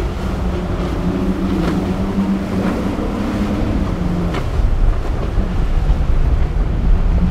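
Twin Yamaha 225 outboard engines running steadily on a power catamaran crossing choppy waves, with rushing water and spray, a couple of brief splashes, and wind noise on the microphone.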